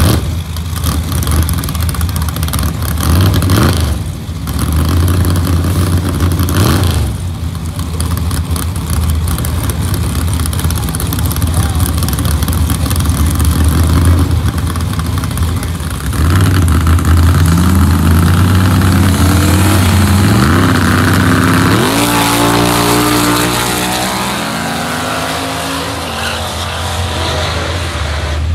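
Two drag-race cars' engines idling roughly at the starting line with occasional revs, then revving up, and about 22 seconds in launching hard: the engine pitch climbs repeatedly through gear changes and fades as the cars pull away.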